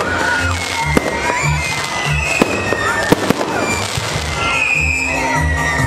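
Aerial fireworks display: several sharp bangs at uneven intervals over a dense crackle of bursting shells. Music with a deep beat plays underneath.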